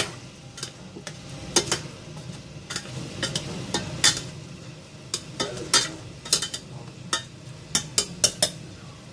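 A spoon stirring adobo in a stainless steel pot, scraping and knocking irregularly against the pot's sides and bottom, over the steady sizzle of the meat simmering in its sauce.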